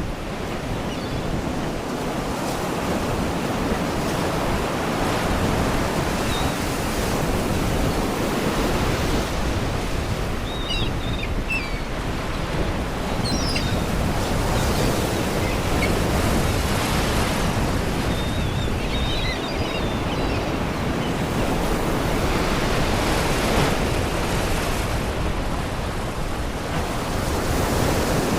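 Sea waves washing and breaking against rocks in a steady surf. A few faint, short seagull cries come through a little before halfway and again about two-thirds of the way through.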